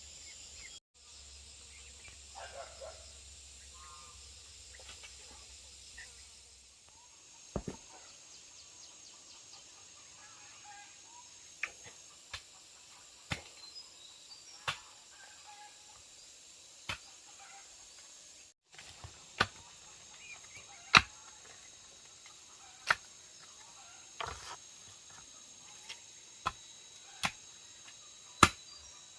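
A series of sharp, single knocks or clicks at irregular intervals, becoming more frequent in the second half. They sound over a steady high insect drone.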